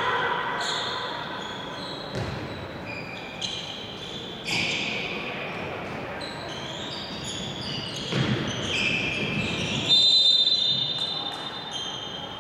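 Indoor handball play on a wooden court: sports shoes squeak sharply, over and over, and the ball thuds a few times as it is bounced. Players' voices call out, and the sound echoes around the hall.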